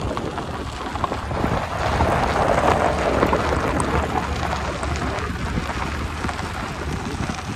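Wind buffeting the microphone with a heavy low rumble, mixed with many small clicks and crunches; it swells a little about two seconds in.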